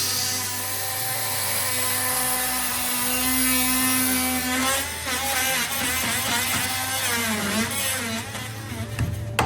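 Power tool running and cutting into the wooden piano case, its motor pitch wavering as it loads up in the cut. A few sharp knocks come right at the end.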